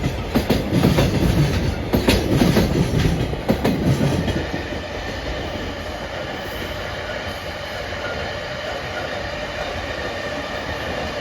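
Freight train of Koki container wagons passing over a level crossing, wheels clacking heavily over the rail joints. About four and a half seconds in, the clacking stops and a steadier, quieter rumble continues.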